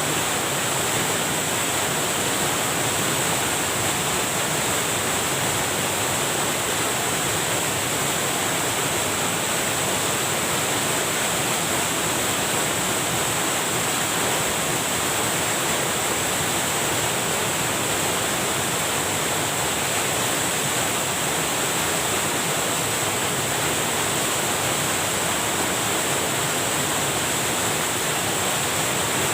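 Water rushing steadily over a small river cascade (grojokan), an even, unbroken rush of white noise.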